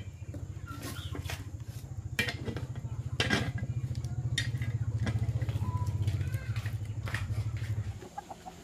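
A small engine running at a steady idle with a fast, even low pulse, cutting off suddenly near the end, with scattered light knocks and clicks over it.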